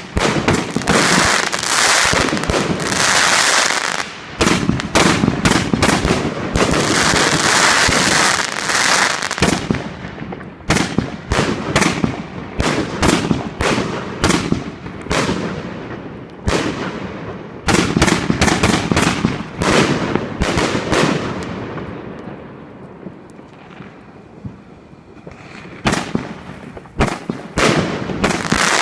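A 160-shot fireworks cake firing: dense volleys of launches and crackling bursts for the first ten seconds or so, then more spaced-out reports. About twenty-two seconds in there is a short lull before the shots pick up again.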